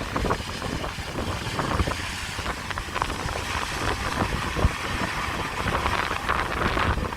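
John Deere combine harvesters running in the field with a steady low rumble, under wind buffeting the microphone.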